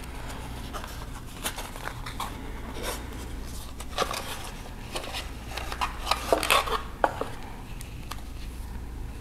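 A small cardboard product box being handled and opened: light rustling, scraping and clicks as the flap is opened and the inner tray slides out of its sleeve, with a few sharper clicks about four seconds in and again six to seven seconds in. A steady low hum runs underneath.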